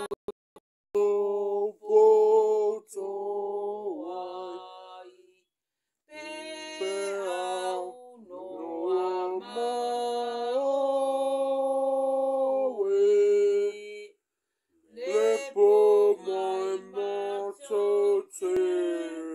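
A voice singing without accompaniment: phrases of long, steady held notes with occasional slides in pitch, broken by two short pauses.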